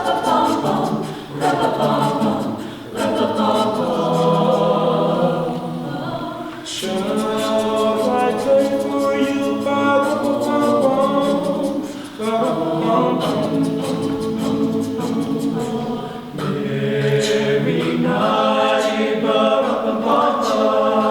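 Mixed-voice madrigal choir singing a cappella in several-part harmony, in sustained phrases broken by short breaths.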